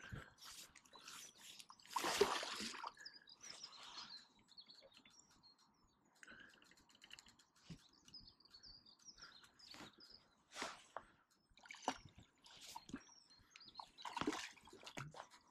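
Small birds chirping over scattered rustles and knocks from the rod and reel being handled while a hooked barbel is played. The loudest rustle comes about two seconds in.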